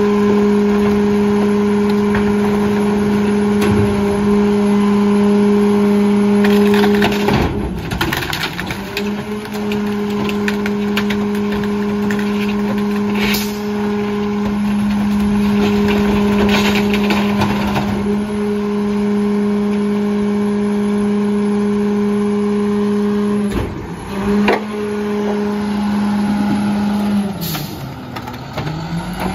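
Heil 5000 rear-loader garbage truck running at a steady raised engine speed while its hydraulic packer cycles. The engine note drops and picks back up about three times, and debris and the packer blade clank and knock in the hopper now and then.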